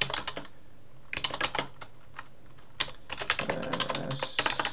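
Typing on a computer keyboard: several bursts of rapid key clicks with short pauses between them.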